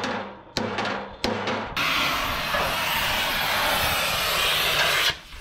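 Two hammer blows on a steel bar held against a truck's chassis rail, then a loud steady hiss that cuts off suddenly near the end.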